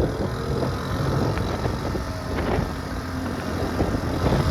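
Honda C70 Cub's small single-cylinder four-stroke engine running as the bike pulls away on the road, with wind buffeting the microphone.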